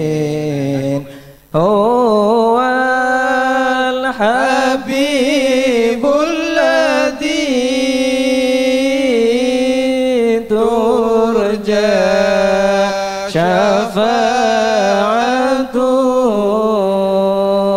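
A single voice chanting Islamic sholawat (blessings on the Prophet Muhammad) over a PA system, holding long wavering notes, with a short break about a second and a half in.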